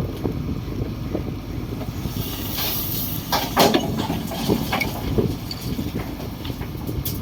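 Komatsu D58 bulldozer's diesel engine running steadily, with sharp metallic clanks and squeals near the middle and one more near the end.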